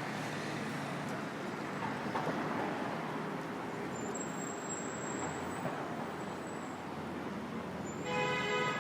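City street traffic: a steady wash of passing cars. Near the end, a short pitched tone sounds over it for under a second.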